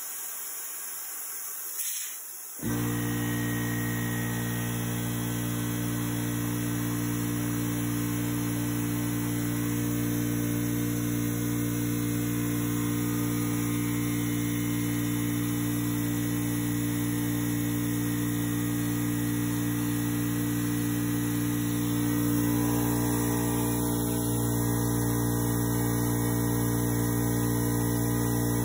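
Craftsman 919.165200 5 hp oil-free air compressor starting on its own: a click, then the electric motor and pump start about two and a half seconds in and run steadily with a hum as the tank builds pressure. The tone shifts slightly about 22 seconds in.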